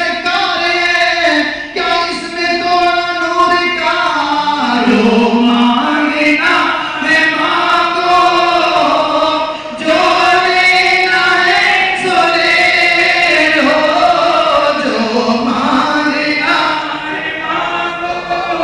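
A crowd of voices singing a devotional chant together in a large hall, long melodic lines sung in unison.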